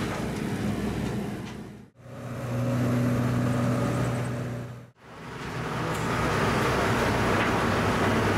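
Diesel engine of a Hitachi EG110R rubber-track crawler carrier running steadily with a low hum, in three short takes that each fade out, about two and five seconds in.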